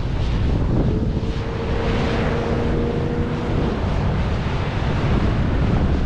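Wind buffeting the microphone in a steady, rumbling rush. A faint steady hum holds one pitch from about a second in until nearly four seconds.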